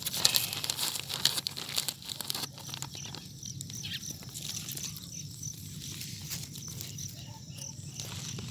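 Plastic sheeting and grass rustling and crinkling as they are brushed and moved aside, densest in the first two seconds or so. After that it is quieter, with a steady low hum and faint high ticks repeating about twice a second.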